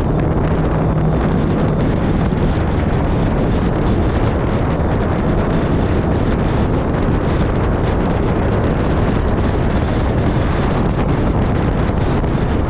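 Steady wind rush buffeting the microphone of a camera mounted on a moving Ford F-truck, with the truck's engine and road noise underneath.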